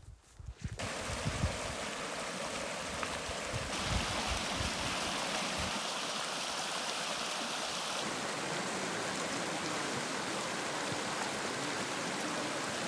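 Steady rush of a fast-flowing stream, with low thumps on the phone's microphone during the first five seconds. The tone of the rush shifts abruptly twice.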